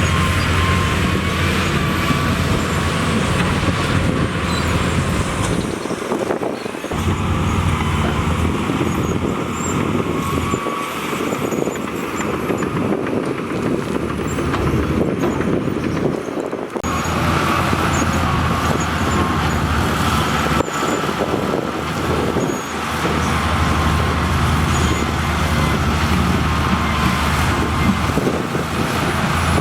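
Heavy diesel earthmoving machinery running and working, a steady low engine drone with brief dips. The sound changes abruptly a little past halfway.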